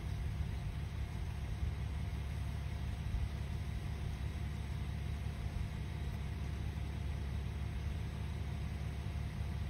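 Engine idling steadily: a low, even rumble with a faint steady hum above it.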